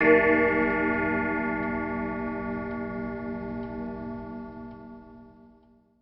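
A deep clock bell struck once, ringing with many tones and fading away over about six seconds, with faint ticks behind it.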